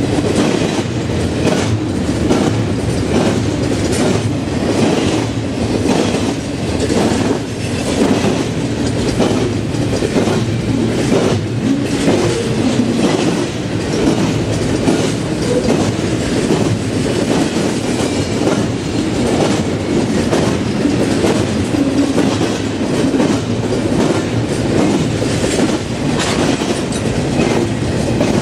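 Cars of a BNSF double-stack container train rolling past, a steady rumble with the wheels clicking over rail joints several times a second.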